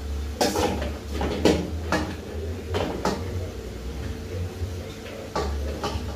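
Irregular knocks and clunks of a steel bowl as dough is pinched off and worked by hand inside it, about nine in all, with a pause in the middle, over a steady low hum.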